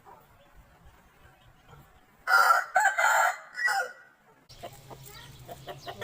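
Aseel rooster crowing once, loudly, about two seconds in, in a call of a second and a half broken into several segments. Faint clucking follows against a different background near the end.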